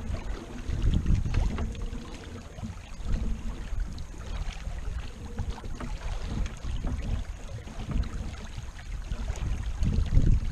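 Wind buffeting the microphone over the rush of water along the hull of a sailing yacht under way, with a few faint knocks.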